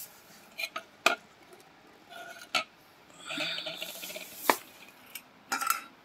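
Unpowered vacuum cleaner motors being handled and set down on a hard tabletop: a series of sharp knocks and clinks from their metal and plastic housings, with about a second of rattling in the middle.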